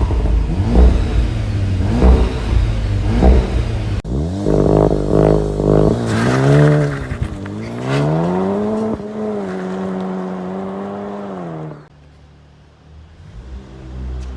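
SEAT Leon Cupra R's 2.0-litre turbocharged four-cylinder engine being revved while stationary: a few quick blips, then a rise held at steady revs for a few seconds before it drops back to idle. Before the revving, for about four seconds, there is a loud thumping about once a second.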